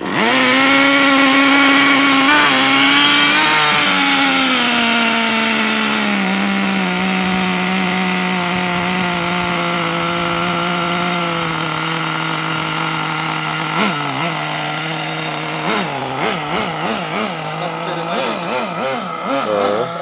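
Small two-stroke glow-fuel (nitro) engine of an XTM 24.7 RC car catching and running with a high, buzzing idle that slowly settles to a lower steady pitch, then quick throttle blips from about two-thirds of the way in. The owner says it smokes heavily and speeds up on its own at idle and wonders whether it is tuned too lean or too rich.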